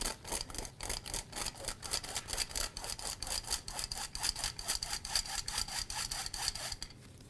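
Hand-operated metal flour sifter being worked, its blades scraping flour and cocoa through the mesh in a fast, even rhythm of about five strokes a second, with a steady high tone over the strokes. It stops shortly before the end.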